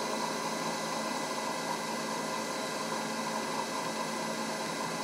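Spindle of a Bridgeport Romi EZ Path S CNC lathe running steadily at about 2,500 RPM: an even whir with a few faint steady tones. The spindle bearings sound good.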